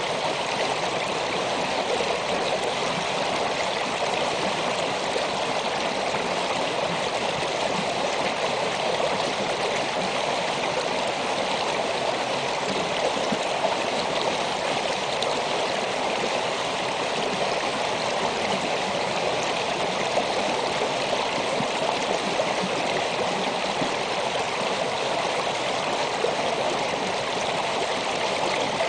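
Shallow snowmelt creek running over rocks: a steady, unbroken rush of flowing water.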